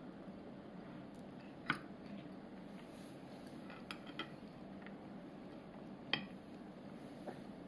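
A child's metal fork clinking and scraping against a divided plate as rice is scooped up: about five sharp clinks, the loudest about two seconds in and again about six seconds in.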